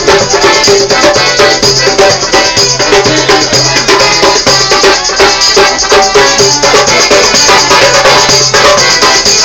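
Buskers' folk music in a train carriage: an accordion and an acoustic guitar playing a lively tune while a hand drum is beaten in a quick, steady rhythm.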